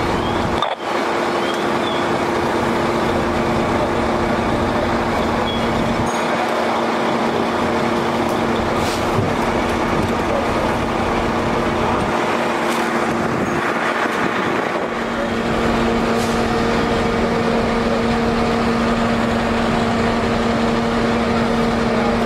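Fire trucks' diesel engines running steadily with a constant drone, the drone shifting in tone about fifteen seconds in.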